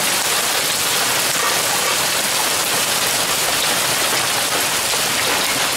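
Heavy rain falling steadily on a grassy yard, a dense, even hiss without separate hits.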